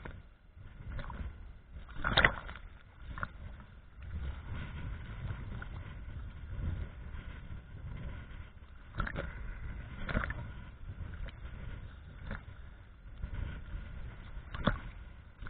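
Choppy sea waves sloshing and slapping against a camera housing held at the water surface, with an irregular run of sharper splashes, the loudest about two seconds in.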